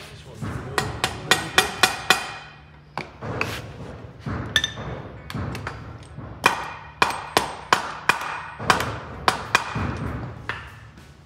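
Hammer blows driving a spring perch into the perch bore of a So-Cal Speedshop I-beam front axle, which fights going in. The blows come in quick runs, one about a second in and a longer one from the middle on, each a sharp knock with a short metallic ring.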